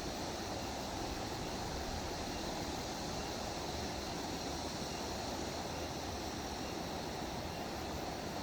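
Steady rushing of flowing water with wind, an even noise that holds at the same level throughout.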